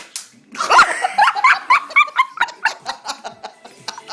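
A sharp click, then a burst of loud, high-pitched laughter in quick rhythmic pulses of about four a second.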